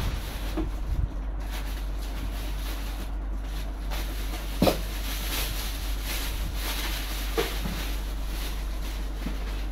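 Plastic packaging bags rustling and crinkling as parts are handled in a cardboard box, with a sharp knock about halfway through and a lighter one later. A steady low hum runs underneath.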